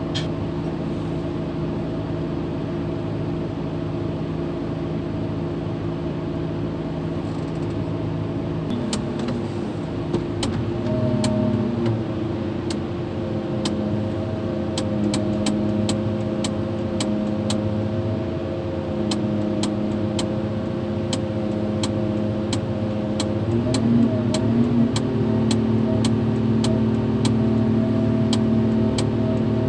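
Mobile crane engine running steadily, its note shifting a couple of times. From about nine seconds in, a hammer strikes steel at a steady beat of roughly one and a half blows a second, knocking out the pin of a tower crane's counterweight jib.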